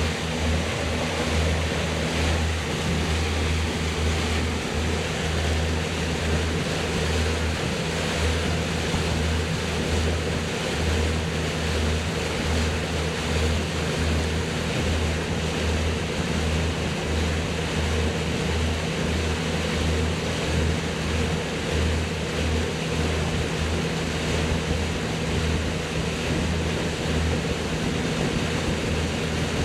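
Boat motor running at a steady speed, a constant low hum with a steady hiss of water and air over it.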